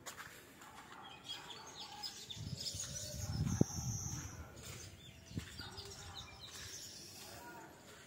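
Faint outdoor background with birds chirping, and a couple of soft knocks near the middle.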